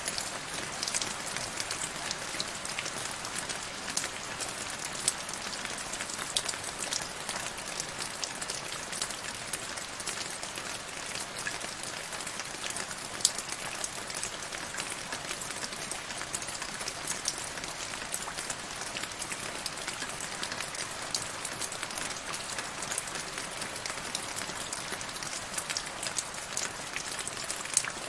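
Steady rain falling into a shallow puddle of standing water: a constant hiss dotted with many small drop splashes and now and then a louder plink.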